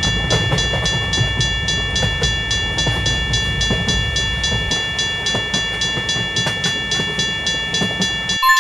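Railroad crossing warning bell ringing in a fast, even rhythm of about four rings a second, over the low rumble of a passing train that cuts off suddenly near the end.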